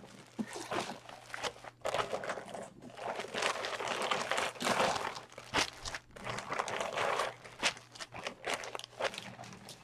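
Plastic packaging crinkling and rustling in the hands in irregular bouts as a package is opened.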